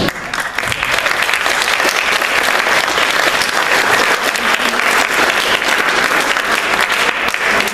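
Audience applauding steadily, many hands clapping at once, at the end of a scene of a play.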